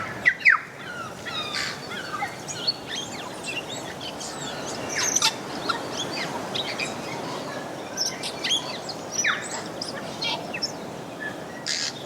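Birdsong with many short, varied whistles, chirps, clicks and quick gliding notes, the kind of mixed song tūī sing, with other small birds calling in among them.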